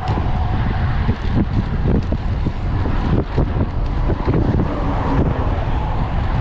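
Wind buffeting the microphone on a moving road bike: a loud, gusty low rumble.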